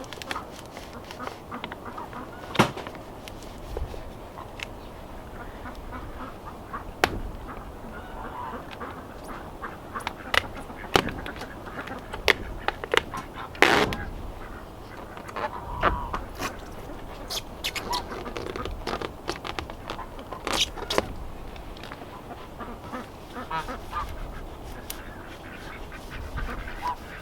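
Domestic ducks quacking and geese honking, with scattered sharp crackles and taps from the greenhouse plastic and tape being handled.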